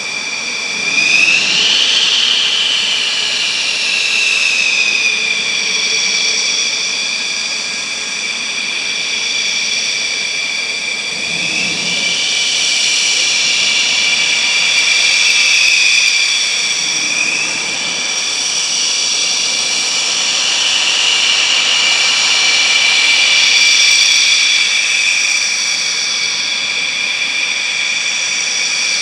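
Jet engines of a twin-engine Dassault Rafale M running with a steady high-pitched whine of several tones, which swells and rises slightly in pitch three times.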